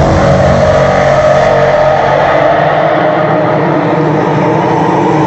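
Hardstyle show intro played loud over a festival sound system: sustained, slightly falling synth tones over a deep rumble, with the bass dropping away about three and a half seconds in.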